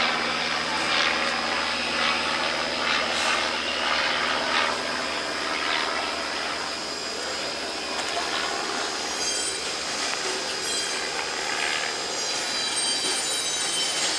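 Wheels squeaking and squealing as a light monoplane is pushed by hand on a tail dolly: short squeaks in the first few seconds, then a steadier high-pitched squeal from about nine seconds in.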